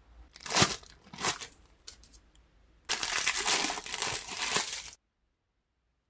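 Crinkly packaging wrap being handled and pulled: two short crinkles, then about two seconds of continuous crinkling that cuts off abruptly near the end.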